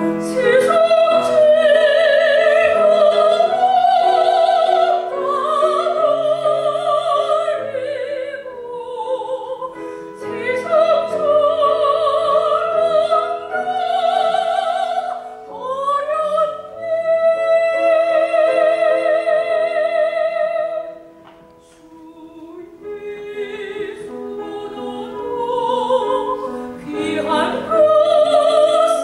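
Solo soprano singing a hymn in operatic style with wide vibrato, over piano accompaniment. A long high note is held past the middle, followed by a brief lull before the singing resumes.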